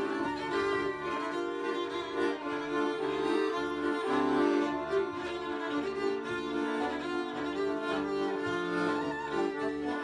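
Two violins and an accordion playing live instrumental klezmer, the violins holding long bowed notes over a repeating pulse underneath.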